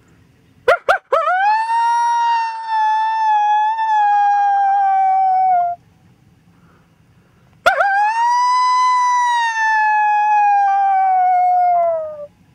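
Coyote howls sounded on a predator call to lure coyotes in. There are two long howls. The first opens with three quick rising yips, then holds a long note that slowly sinks. The second holds a similar note and drops away at its end.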